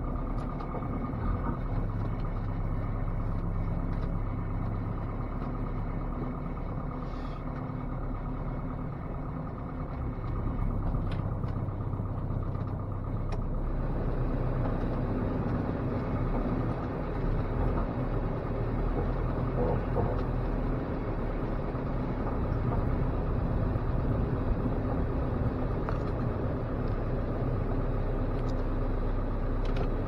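1987 Dodge Raider's four-cylinder engine running steadily under load while plowing snow, heard from inside the cab; it gets a little louder about ten seconds in.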